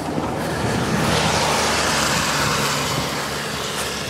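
A car passing on a wet road, its tyre and engine noise swelling and then fading over about three seconds.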